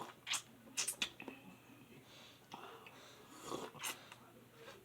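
A person sniffling and breathing while eating, with a few short sharp sniffs or mouth clicks spread through an otherwise quiet stretch.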